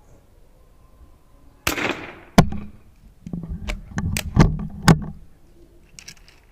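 .22 LR rifle firing a single shot, with a short ringing tail. It is followed by a sharp knock and then a quick string of sharp clicks and knocks as the rifle is handled and its bolt worked.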